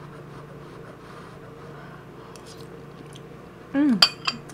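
Faint sipping and chewing of kimchi stew, then near the end a short falling "mm" hum from the eater and a few sharp clicks of metal chopsticks against the rice bowl.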